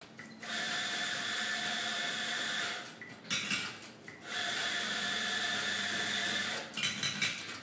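Electric coffee grinder motor running in two bursts of a little over two seconds each, a steady whirring hum over a hiss, with short knocks and clatter between and after the runs.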